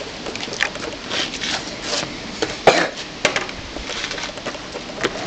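Skateboard on concrete: the wooden deck knocking against the concrete several times, the loudest knocks about two and a half and three seconds in, with the wheels rolling and scraping in between.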